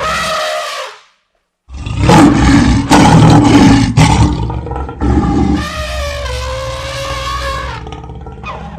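Lion and elephant fight sound effects. A pitched animal call breaks off about a second in and is followed by a brief silence. Then comes a loud, rough roar lasting several seconds, which gives way to a long, steady, pitched call.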